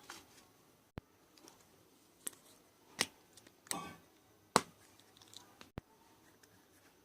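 Slime being handled and squeezed, with several short sharp pops and clicks a second or so apart; a slightly longer squelch comes just before the loudest pop, about four and a half seconds in.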